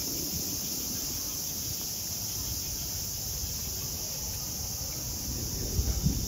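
Cicadas droning in a steady high-pitched summer chorus, with a few low thumps near the end.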